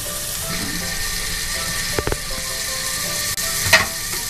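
Onions and spice masala sizzling steadily in hot oil in a clay handi, with a faint tune in the background. A light click comes about two seconds in and a sharper clink near the end.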